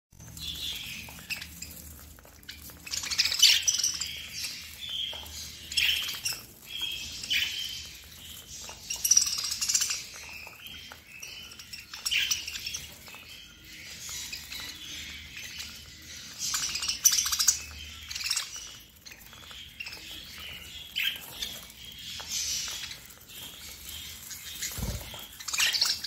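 Flock of budgerigars chirping and chattering together without pause, many short calls overlapping, with louder calls every few seconds.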